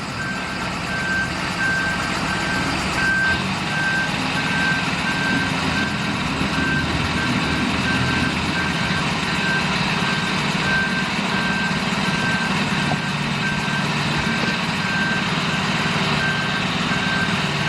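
A heavy vehicle's reversing alarm beeping steadily in evenly spaced single-pitch beeps over the running diesel engine.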